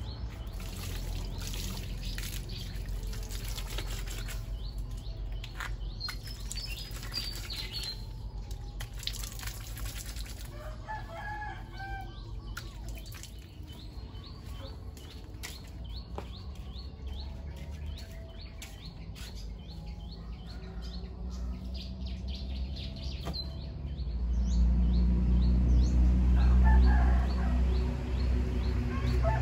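A rooster crowing once about midway, among small bird chirps, over a steady low rumble. The rumble grows much louder for the last few seconds.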